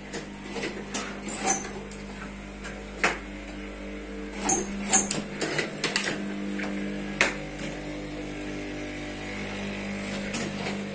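Steady machine hum with scattered clicks and knocks, the strongest between about four and five seconds in.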